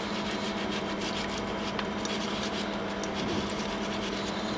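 Toothbrush bristles scrubbing a greasy knurled steel nut under a thin trickle of running tap water: fast, fine scratching over the steady splash of water, with a low steady hum behind.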